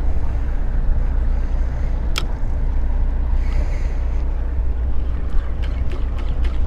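Steady low rumble of an offshore fishing boat running at sea, with a sharp click about two seconds in and a quick run of clicks near the end.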